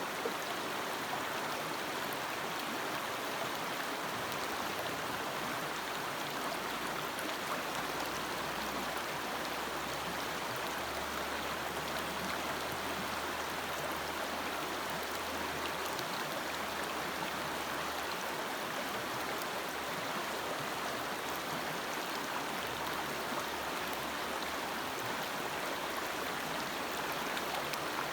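Forest stream flowing: a steady rush of running water with faint splashes.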